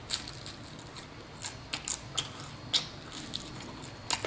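A mouthful of pizza crust being chewed close to the microphone, with irregular short crisp crunches and clicks.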